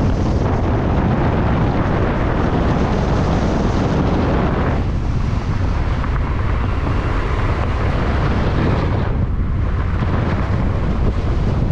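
Steady rush of wind on the microphone from a moving car, with the car's tyre and road noise underneath. The higher hiss drops away about five seconds in.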